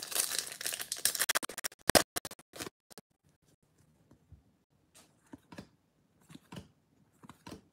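Foil wrapper of a baseball card pack crinkling and tearing open for the first two seconds, ending in a few sharp crackles. After that come soft, scattered swishes and clicks of trading cards slid one by one through the hands.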